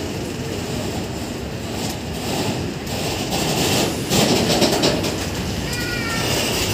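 BCACBM-B car-carrier freight wagons rolling past close by, a steady rumble and rattle of wheels on rail. It gets louder about four seconds in as a wagon gap with its bogies goes by, and a brief high squeal comes near the end.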